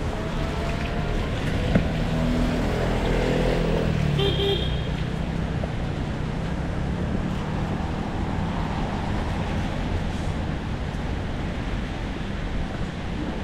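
City street traffic on wet roads in the rain: a steady wash of rain and tyre noise, with a vehicle passing about two to five seconds in, its engine pitch falling as it goes by. A short high horn beep sounds about four seconds in.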